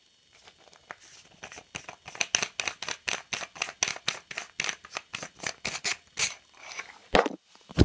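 Aluminium survival canister being worked open by hand: a run of quick small clicks and scrapes, about four a second, then two sharper knocks near the end.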